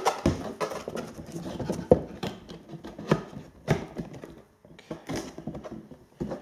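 Cardboard model box and foam packing being handled and moved: irregular knocks, taps and scuffs, with one sharp knock about two seconds in.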